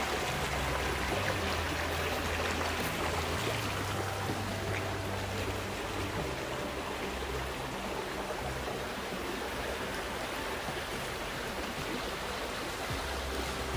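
Shallow creek water running and splashing over rocks, a steady rushing, a little louder in the first few seconds.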